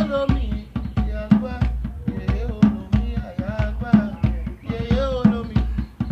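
Orisha devotional music: hand drums playing a steady, driving rhythm under a singing voice.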